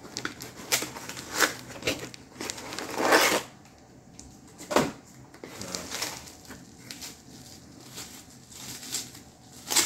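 Packaging rustling and containers being handled as a delivered parcel of airbrush lacquer is unpacked. Scattered sharp clicks and knocks run through it, with a longer rustle about three seconds in.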